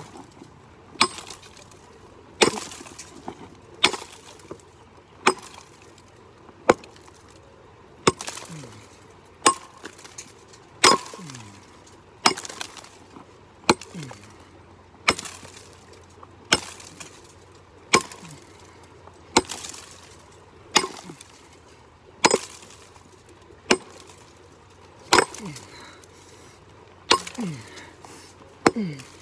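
Steel pickaxe striking rock over and over, a sharp clinking blow about every second and a half, some twenty strikes in all.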